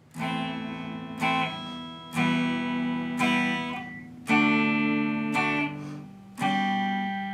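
Intro music: guitar chords strummed about once a second, each left to ring and fade before the next.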